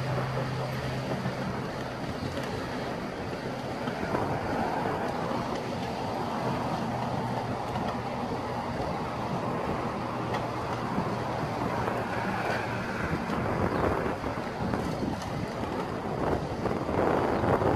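Demolition excavators' diesel engines running steadily with a low hum, and wind buffeting the microphone. The noise grows louder and rougher near the end.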